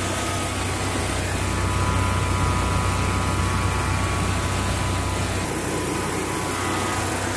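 Generac home standby generator engine running steadily at constant speed, with an even low hum and a faint steady whine above it.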